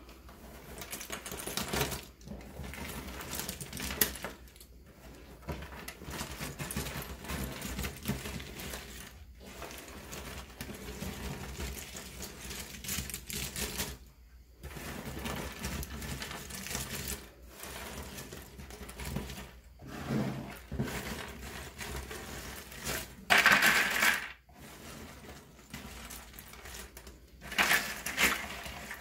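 Cardboard pieces of a 1000-piece Ravensburger jigsaw puzzle clattering and rustling as the assembled puzzle is broken apart by hand and the pieces are scooped into the box, with two louder bursts of clatter near the end.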